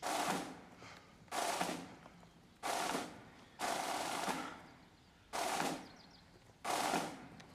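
Drum beats struck at a slow, even pace, one hit about every 1.3 seconds, each ringing off briefly; seven strikes in all, marking the duelists' paces.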